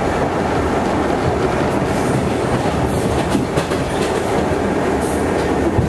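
R68 subway car running at speed, heard from inside the car: a steady rumble of wheels on rail with irregular clickety-clack as the wheels cross rail joints.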